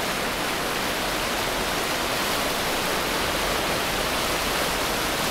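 The Stehekin River rushing past steadily as it runs high and bank full.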